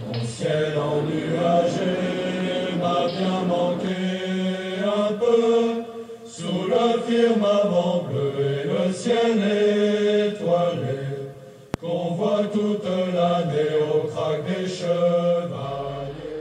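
Chanted vocal music: voices singing slow, long-held notes.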